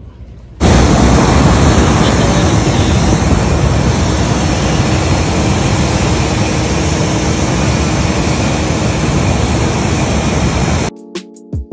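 Jet aircraft noise on an airport ramp: a loud, steady rush with a thin, high-pitched whine over it, starting abruptly about half a second in. Near the end it cuts off and keyboard music begins.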